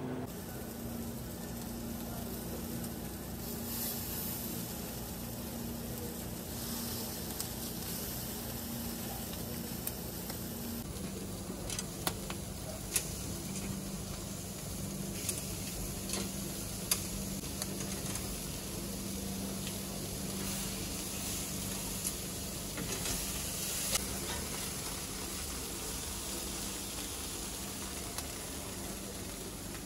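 Whole squid sizzling on a grill over a steady low hum, with a few sharp clicks of metal tongs against the grate.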